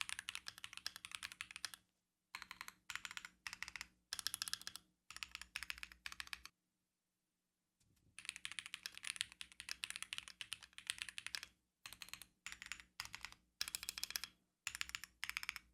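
Fast typing on Epomaker Tide aluminum-case mechanical keyboards: a rapid stream of key clacks in short runs that stop abruptly and start again several times, with a full silence of about a second just past the middle.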